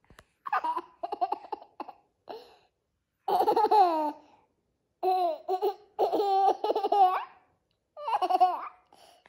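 Small children laughing in short bursts, several times, with brief pauses between.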